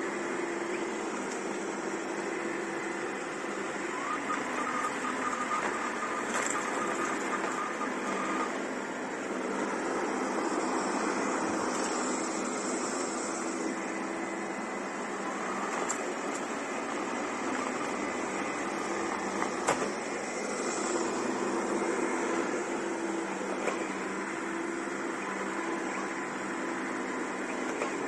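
Xiaomi Mi Robot Vacuum-Mop Essential robot vacuum running on medium suction: a steady whir of its suction fan with its brushes sweeping a tiled floor. A higher whine comes in for a few seconds about four seconds in, and there is one sharp click about twenty seconds in.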